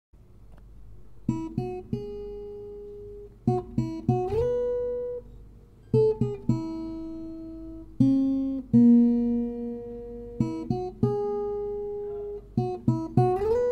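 Acoustic guitar intro music: single plucked notes and short groups of notes that ring out and fade, with a few notes sliding upward in pitch.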